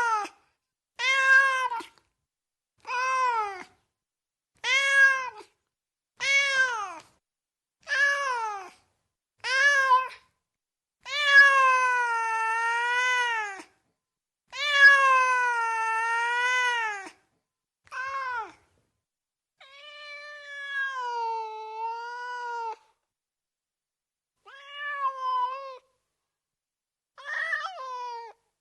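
Cat meowing over and over. First come seven short meows about every second and a half. Then two long drawn-out meows, and then a few quieter meows, one long, with gaps between them.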